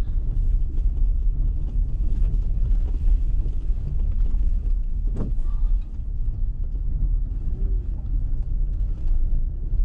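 Car cabin rumble as the vehicle drives slowly along a dirt road, steady and low, with one sharp knock about five seconds in.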